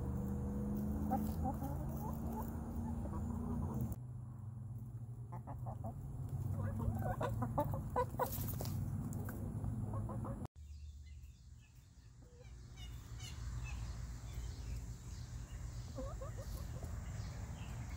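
Backyard laying hens, Easter Eggers and White Leghorns, clucking in short calls, with a busy run of clucks in the middle.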